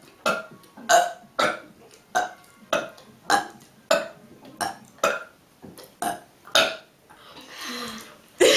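A girl burping in a quick string of about a dozen short burps, roughly two a second, followed by a breathy stretch and a louder burst at the very end.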